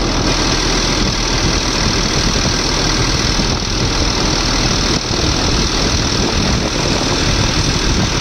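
A freshly rebuilt Volvo EC210B excavator's six-cylinder turbo diesel engine running steadily with the engine bay open.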